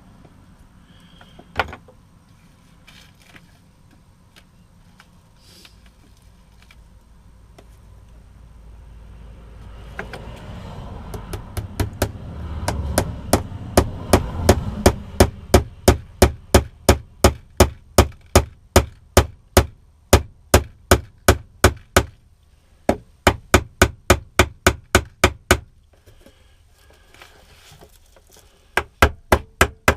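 Small hammer tapping panel pins into a thin wooden box, in a quick even run of strikes about two to three a second, after a single knock about two seconds in. The strikes stop for a few seconds and pick up again near the end.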